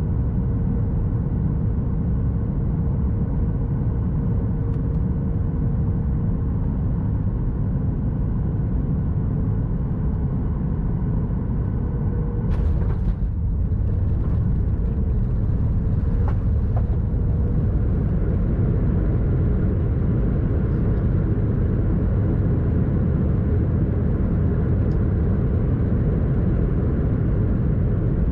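Steady low rumble of a Boeing 737 MAX 8 cabin, with engine and airflow noise heard from a window seat and a faint steady hum. About halfway through there is a brief sudden burst of noise.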